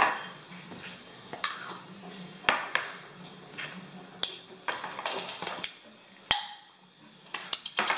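Scattered sharp clicks and taps at uneven intervals, about a dozen, from metal spoons and small glass baby food jars knocking against each other and the tabletop.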